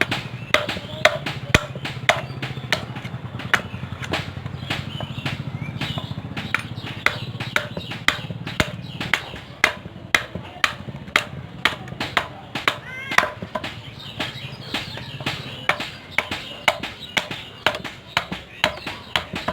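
Hand hammer striking steel on an anvil, about two ringing blows a second, as a knife blade is forged. A low steady hum runs under the blows and fades out near the end.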